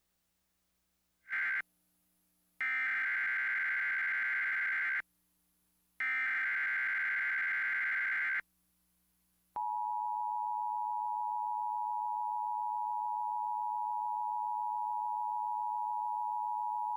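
Emergency Alert System tones: three bursts of screechy SAME digital header data, the first brief and the next two about two and a half seconds each, then the steady two-tone EAS attention signal held for about eight seconds. They announce a Severe Thunderstorm Watch alert.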